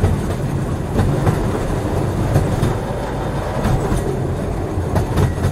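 Train rolling along the track: a steady low rumble with clicks from the wheels over the rail joints now and then.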